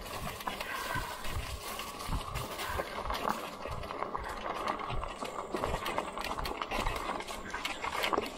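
Lectric XP folding e-bike riding over a rough, grassy trail: tyres rolling and the bike rattling with many small, irregular knocks.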